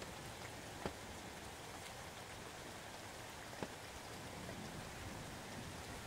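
Faint, steady rain with a few louder single drops striking close by, one about a second in and another past three and a half seconds.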